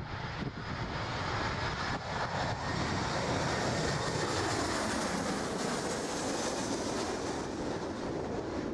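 Boeing 737 airliner flying low overhead on final approach. Its twin jet engines make a steady noise with a faint high whine above it. The noise grows louder over the first few seconds, then sinks in pitch near the end as the plane passes.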